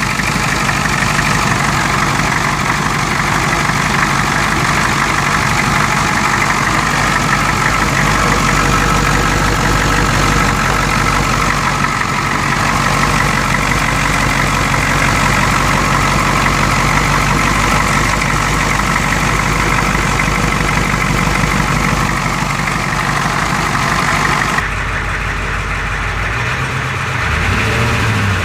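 1992 Ford 7.3 IDI V8 diesel idling steadily. This engine has a random misfire and knock at idle with blowby, later traced to broken second piston rings on two pistons and a bad valve guide. The sound turns duller near the end.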